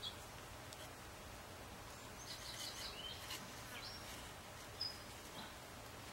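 Faint outdoor ambience with a few short, high chirps from about two to five seconds in, and the light rustle of nylon paracord being handled.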